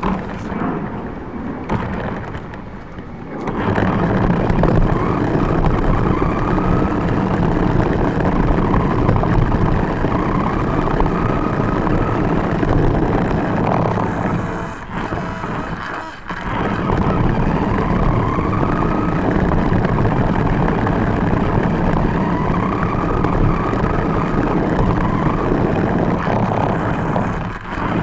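RC car driving with the camera riding on it: a loud, steady rumble of wheels and chassis over pavement and grass, with a faint motor whine that rises at times. It starts about three and a half seconds in and drops away briefly twice in the middle and again near the end.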